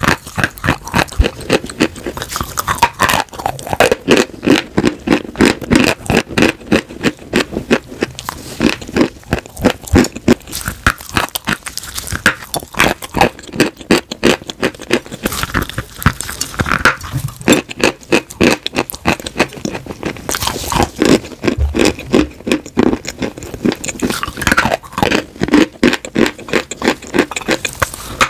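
Close-miked chewing of crunchy edible chalk and clay coated in creamy paste: a steady rhythm of crunching and crackling right at the microphone.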